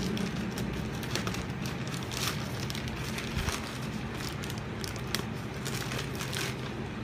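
Plastic courier pouch crinkling and crackling as it is cut open with scissors, in irregular short rustles.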